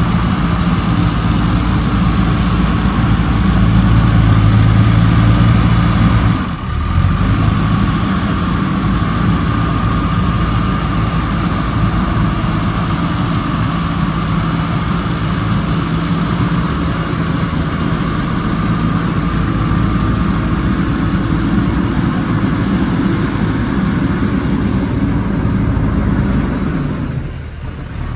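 Diesel engine of a JCB backhoe loader running steadily while it loads soil into tractors. It works harder for a couple of seconds, drops off briefly about six seconds in, and falls away again near the end.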